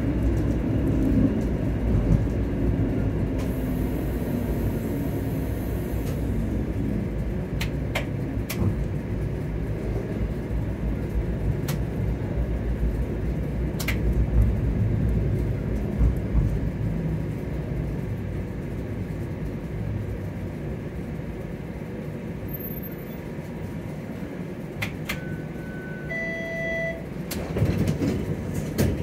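Streetcar running along its track, heard from inside: a steady low rumble with a few scattered clicks and knocks, and a motor hum falling in pitch over the first few seconds. Two short electronic beeps sound near the end.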